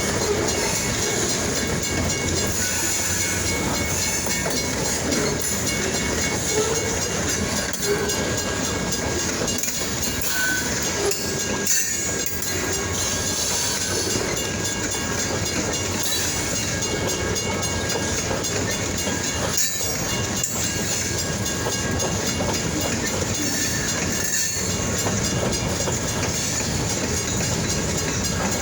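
Freight train rolling past, its steel wheels running on the rails in a steady, continuous noise.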